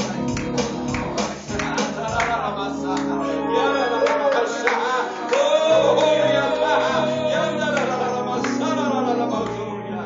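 Church worship music: a voice singing over instrumental accompaniment, with a long held note about halfway through.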